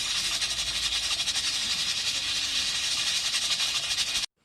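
Steady hiss of a pot of rice cooking on a camp stove, cutting off abruptly near the end.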